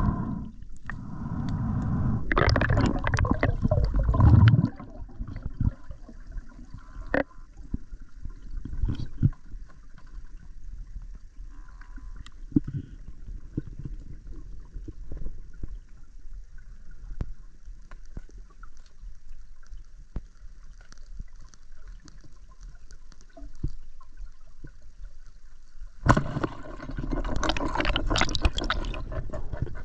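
Underwater sound picked up by a submerged camera: muffled rushing and gurgling water, loud in the first few seconds and again near the end, with a quieter stretch between crossed by scattered sharp clicks.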